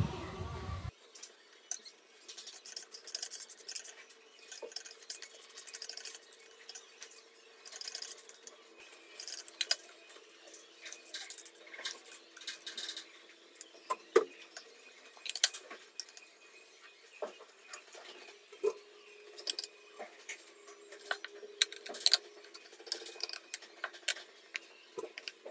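A cloth rubbing cooking oil into a deodar-wood cutting board on a stone countertop, with scattered light clicks and knocks as the board is handled.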